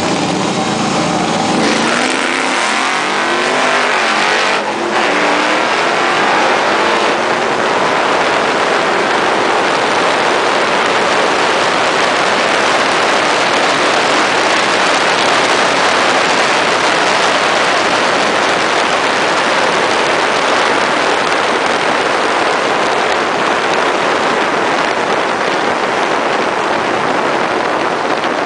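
Chevrolet Camaro SS V8 launching down a drag strip, its engine note climbing through the gears with a brief break at a shift about five seconds in. From about seven seconds on, a steady rush of wind over the outside-mounted microphone at speed covers the engine.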